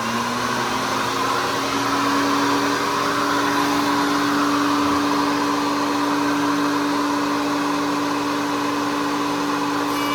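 Table-mounted wood router with a round-over bit winding up to speed over about the first second, then running steadily with a high whine.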